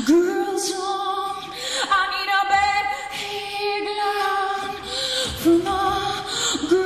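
Female voice singing long held notes in a song, with a marked vibrato on one note about two seconds in, over sparse accompaniment.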